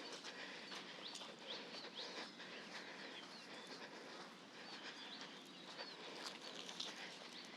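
Birds chirping and calling, with many short, quick chirps, over faint outdoor background noise and soft footsteps crunching in sand.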